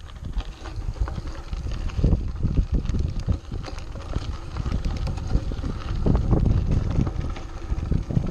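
Mountain bike rolling fast over a gravel and rock dirt trail: tyres crunching and rumbling, with the bike rattling over bumps, getting louder about two seconds in. Wind buffets the microphone.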